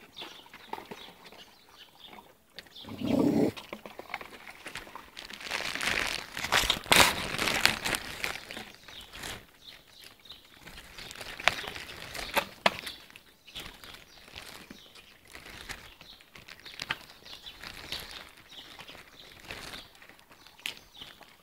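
Stray puppies feeding at plastic bowls and a food bag: irregular rustling of plastic with scattered clicks, busiest from about six to eight seconds in, and a brief low sound about three seconds in.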